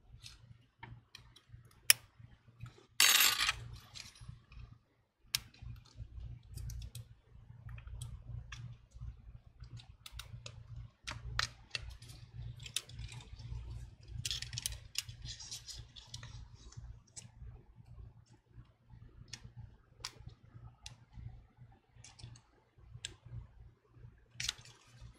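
Small metal repair tools (tweezers and a thin flat pry tool) clicking, tapping and scraping against the parts of an iPhone 11 screen assembly while the earpiece bracket and plastic are pried off. Scattered light clicks, the loudest a sharp click about two seconds in, with short scrapes just after three seconds, around fourteen to sixteen seconds, and near the end.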